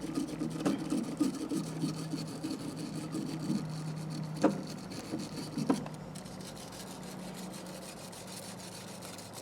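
Small hand wire brush scrubbing grime off the handles of a pair of crimpers: irregular scratchy rubbing with a few sharp clicks, which stops about six seconds in, leaving a faint steady hum.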